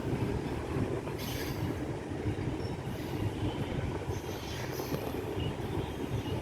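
Heavy freight train running by, a steady low rumble of wheels on rail, with brief higher-pitched wheel squeals about a second in and again later.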